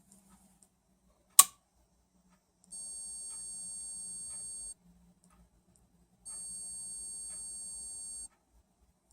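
Nova 1624-44 woodturning lathe giving off a very high-pitched, steady electronic tone in repeated two-second spells with short gaps between them. This is the unwanted noise the lathe is still making. A single sharp click comes just before the first tone.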